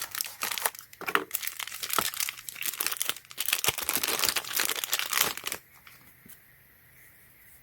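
Packaging crinkling and rustling in irregular crackles while a small plug-in night light is unwrapped and handled. It stops about five and a half seconds in.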